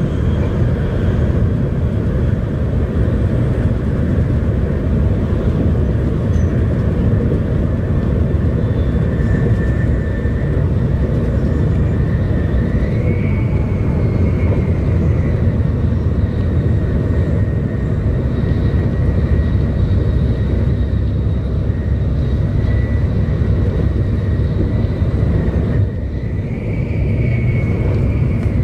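Inside the cabin of a 700 series Shinkansen running at speed: a steady, loud low rumble from the running gear and track, with a faint high whine above it. The whine rises slightly twice, and the rumble dips briefly near the end.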